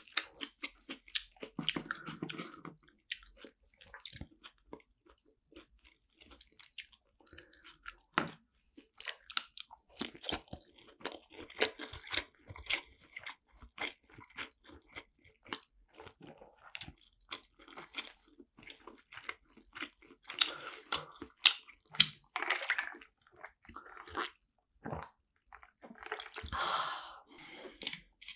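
Close-miked eating of sushi: chewing and biting with many irregular sharp wet mouth clicks and short squelchy bursts.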